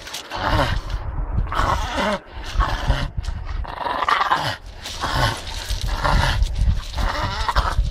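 Several dogs growling in a string of rough bursts while tugging and biting at a hanging branch together.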